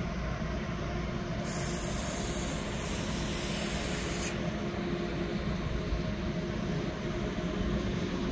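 ICE 3 (class 403) high-speed electric train pulling slowly out of the station, a steady drive hum over wheels rolling on the track. A loud hiss starts about a second and a half in and stops abruptly about three seconds later.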